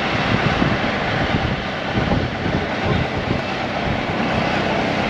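Tuk-tuk (auto-rickshaw) moving along the road: steady engine and road noise.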